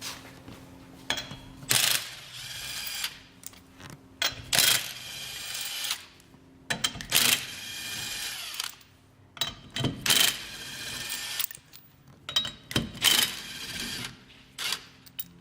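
Impact wrench loosening a car wheel's lug nuts in about eight short bursts, each a buzzing whine lasting under a second, with clicks and clanks in between.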